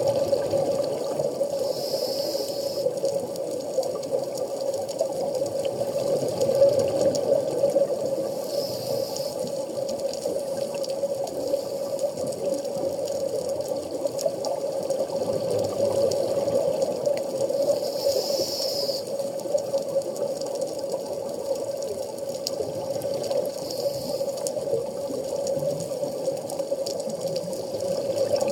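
Underwater ambience heard through a camera housing: a steady, muffled rush of water. A brief hiss comes every several seconds, about four times, from a scuba diver's regulator breathing.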